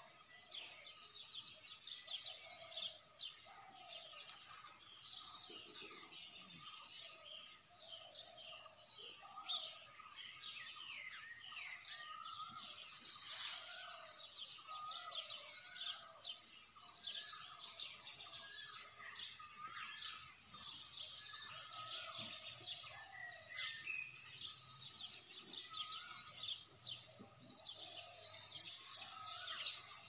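Mixed birdsong: many birds chirping and calling at once, with short high notes overlapping and a lower curved note repeating every second or so.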